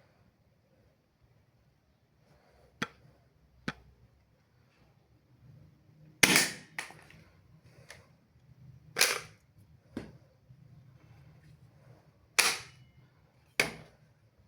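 Toy break-action shotgun dart blaster: two sharp clicks, then a string of louder spring-fired shots, about six, spaced roughly one to three seconds apart.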